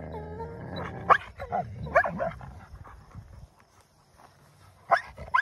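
Wolfdog puppies play-fighting over a toy: low growling at first, then short sharp barks about a second and two seconds in, and two more near the end after a brief lull.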